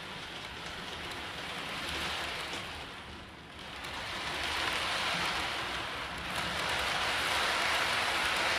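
OO gauge model train running on the layout track: a steady rushing roll of the wheels on the rails, which swells and eases three times and is loudest near the end.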